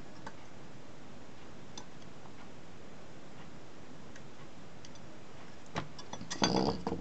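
A few faint clicks as side cutters bend the legs of a power transistor on an aluminium heatsink. Near the end comes a short clatter of louder clicks and knocks as the heatsink and circuit board are handled, all over a steady hiss.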